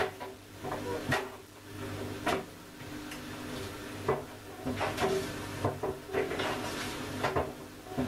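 Front-loading washing machine running with a steady motor hum, as a Nokia 3310 mobile phone tumbles in the turning drum and knocks against it several times at irregular intervals.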